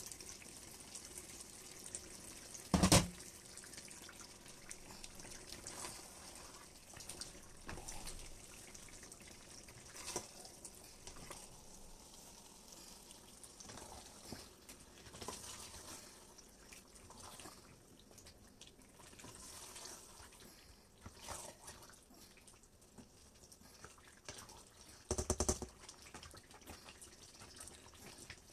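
Palm oil stew bubbling and popping as it simmers in a stainless steel pot, with two louder knocks, one about three seconds in and one near the end.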